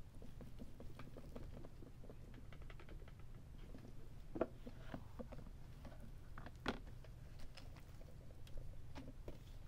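Paper confetti, scraps and hair spilling out of a clear vacuum dust bin onto carpet: soft pattering and rustling with many light ticks. There are two louder knocks, about four and a half and seven seconds in, over a faint low hum.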